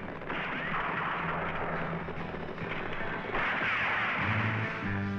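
Two rifle shots about three seconds apart, each a sudden loud crack with a long tail, over background music. Near the end the music takes over with plucked bass notes.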